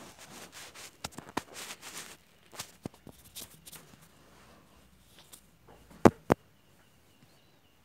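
Rustling and scraping of a hand rubbing a Maltese puppy's fur and the bedding right against the phone's microphone, with scattered clicks, and two sharp knocks about six seconds in.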